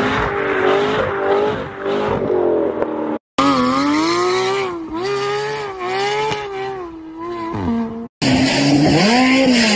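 Sports car engines revving in three short back-to-back clips, each cut off abruptly by a brief silence. First an engine running with a wavering pitch, then a Porsche 911's engine revved up and down again and again, then near the end an engine rev that rises and falls.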